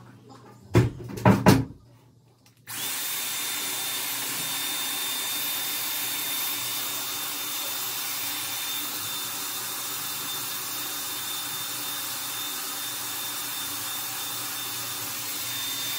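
A few handling knocks, then a Dyson Airwrap hot-air styler switches on about two and a half seconds in and runs steadily: the rush of blown air with a thin high motor whine.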